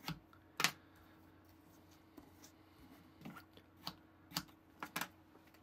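Knife blade slicing through packed kinetic sand, a series of short, crisp crunches, the loudest about half a second in and several more in quick succession later on.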